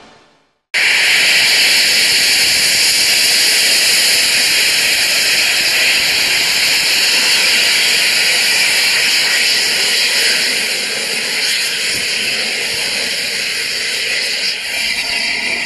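Loud, steady hiss of steam escaping from the open cylinder drain cocks of LNER Peppercorn A1 Pacific steam locomotive 60163 Tornado. It starts abruptly under a second in and eases slightly near the end.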